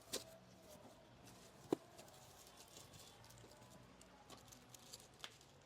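Faint, scattered taps and light rustles of packaging being handled as the clock is unwrapped, with one sharper tap a little under two seconds in.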